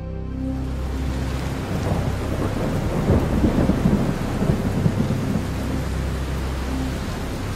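Thunderstorm: a rumble of thunder with the hiss of rain or wind-driven noise. It sets in suddenly just after the start and is heaviest and most crackling in the middle.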